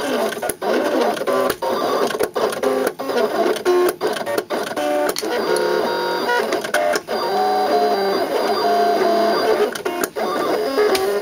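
Electronic craft cutting machine at work: its stepper motors whine as the tool carriage traces designs on the sheet. The pitch jumps from note to note with each move, and short pauses fall between strokes.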